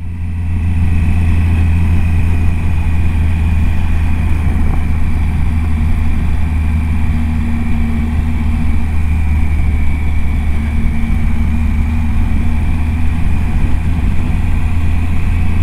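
Adventure motorcycle's engine running at a steady cruise, heard from the rider's seat, with a constant low drone and a steady rush of wind and road noise over it.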